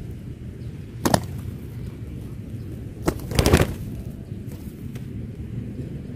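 Spotted dove's wings flapping in two bursts, a short one about a second in and a longer one around three seconds in: the dove is caught by the foot in a snare and still striking at the decoy dove. A steady low wind rumble on the microphone runs underneath.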